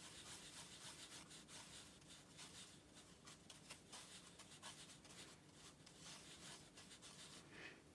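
Faint scratchy rubbing of a watercolour brush working wet paint over rough Khadi cotton rag paper, in many short strokes that stop shortly before the end.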